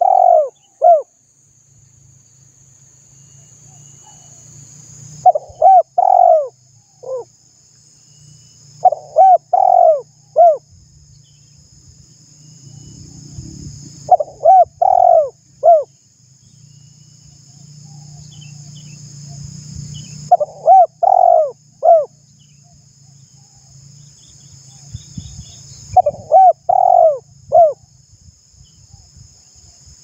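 Spotted dove cooing: short phrases of three or four rounded coos, repeated about every five to six seconds.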